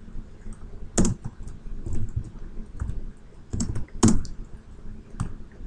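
Typing on a computer keyboard: a short run of irregular key clicks, with a louder stroke about a second in and two more around four seconds.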